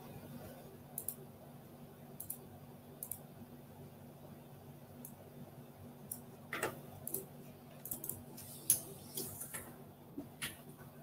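Scattered sharp clicks of a computer mouse and keyboard in use, a few spaced out at first, then coming faster and louder in the second half with one heavier knock. A faint steady low hum runs underneath.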